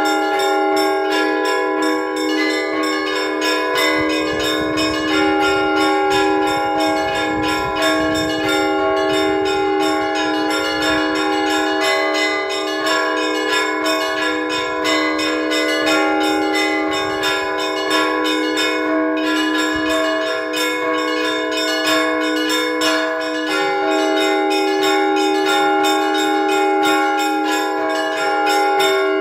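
Orthodox church bells rung by hand from the bell tower: a fast, continuous peal of small bells struck many times a second over the steady ringing of larger bells.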